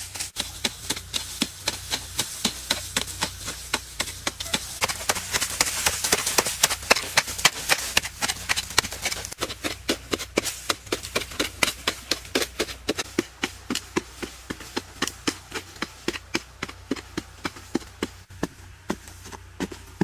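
Crunchy food being bitten and chewed close to the microphone: a steady run of crisp crunches and clicks, about three a second.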